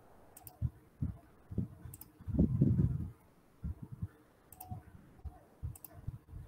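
Scattered sharp clicks and low thumps close to the microphone, like a computer mouse being clicked and moved on a desk. A longer, louder low rustle about two and a half seconds in.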